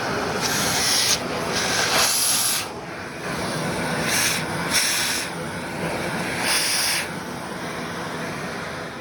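Vacuum cleaner running over socks: a steady suction hiss, broken by about five short bursts of louder, high-pitched hiss. It grows gradually quieter over the last couple of seconds.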